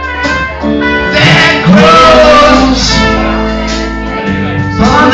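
Live band playing an instrumental break of a pop song: trumpet lead over electric guitar, keyboard and drums, with a steady low bass line.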